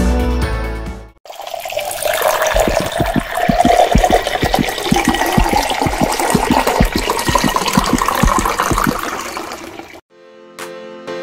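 Water pouring into a pot and churning with bubbles: a loud rushing sound with many quick low glugs, cutting off near the end. Music plays briefly at the start.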